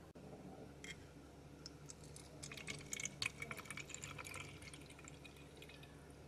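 Water poured from a glass measuring cup into the narrow neck of a small plastic bottle: a faint trickle and splatter. It starts about a second in, is busiest in the middle and thins out toward the end.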